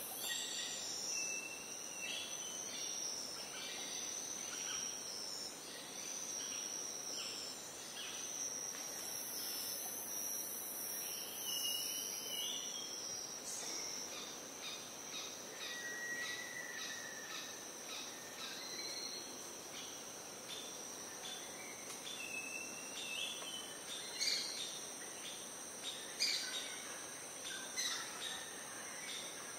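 Tropical rainforest ambience: a steady, high-pitched insect drone with many short bird calls and chirps scattered through it, a few louder calls standing out in the second half.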